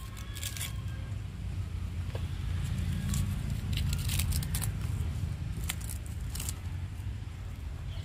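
Paper tape being cut and peeled off the joint of a wooden stingless-bee hive box, heard as several short rips, over a steady low rumble.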